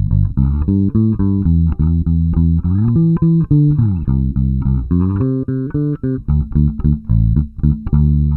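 Baracuda Axcess five-string electric bass played fingerstyle, with both pickup volumes and both tone knobs turned full up: a busy line of plucked notes with a couple of pitch slides in the middle.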